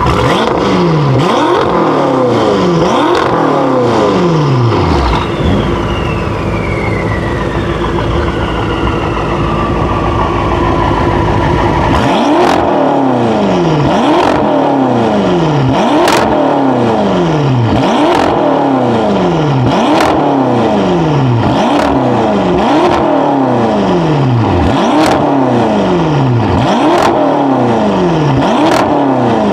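Twin-turbo V8 of a tuned 720 hp BMW M5 F10 with Akrapovic exhaust, revved while standing. After a few blips it idles for several seconds while a high whine slowly falls away. Then come quick throttle blips about once a second, many ending in a sharp crack.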